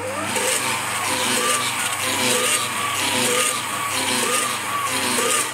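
Milux MFM-3615 Thritop stand mixer running with an empty stainless-steel bowl, its beater's scraper blades rubbing the bowl wall. The result is a loud whirring with a squeal that wavers up and down in a steady repeating cycle, caused by friction of the scrapers on the dry, empty bowl.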